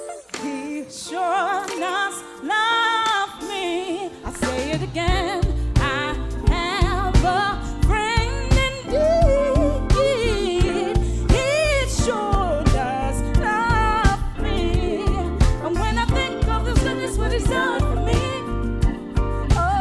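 Gospel song with singing; a steady drum and bass beat comes in about four seconds in.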